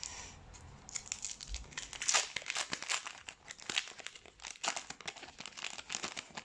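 A 2020 Panini Phoenix football card pack's wrapper being torn open and crinkled by hand: a run of irregular crackles and rips.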